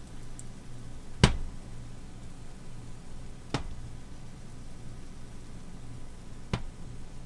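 Three sharp knocks of kitchen utensils, a little over a second in, midway and near the end; the first is the loudest. A steady low hum runs beneath.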